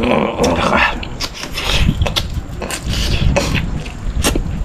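Close-up eating sounds: a man chewing and gnawing on a braised lamb trotter, with irregular clicks of teeth and lips.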